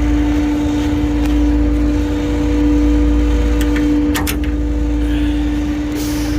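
Concrete pump truck's diesel engine running steadily with a constant low hum, with a few light clicks and knocks from handling gear near it.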